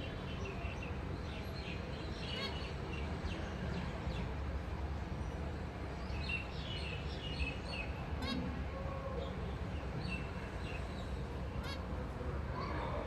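Zebra finches giving short, high chirping calls in scattered clusters, over a steady low hum.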